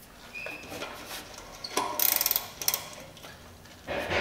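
Hand ratchet wrench clicking in quick runs as it turns a rusted exhaust fastener, with a short high squeak about half a second in.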